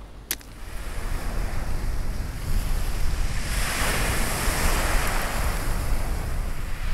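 Sea surf breaking and washing up a shingle beach, swelling about three and a half seconds in, with wind rumbling on the microphone.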